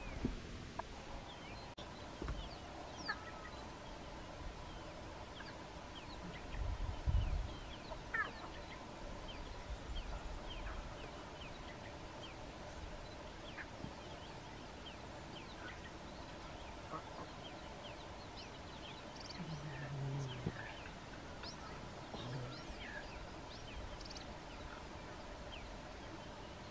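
Many short bird chirps over a faint steady hum. There are low rumbles around seven and ten seconds in, and a short low call about twenty seconds in.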